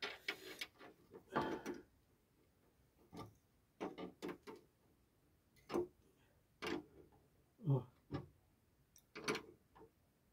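Irregular light clicks and taps of small metal hardware, a nut and washers being fitted and turned onto a coffee-table leg bolt, about a dozen short knocks spread unevenly through the stretch.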